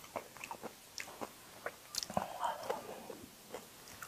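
A person chewing and biting food with irregular wet smacks and small mouth clicks, a little busier about halfway through.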